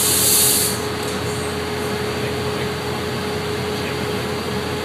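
Steady rushing noise with a constant hum from the glass furnace and electric fan running in a glassblowing workshop, with a short sharp hiss in the first second.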